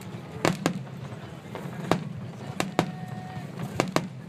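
Fireworks going off: about seven sharp bangs at uneven intervals, some in quick pairs, over a steady low background rumble.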